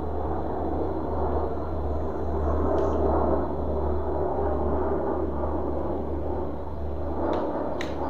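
Light plastic-and-metal clicks from a screwdriver's bit cartridge and cap being handled: one about three seconds in and two close together near the end, over a steady low background rumble.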